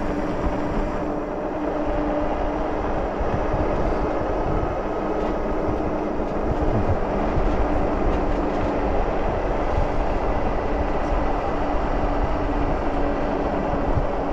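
Steady wind rush on the microphone and tyre noise from an Engwe Engine Pro e-bike coasting downhill at a constant speed. Under it runs a steady whine from the hub motor while it does regenerative braking and charges the battery.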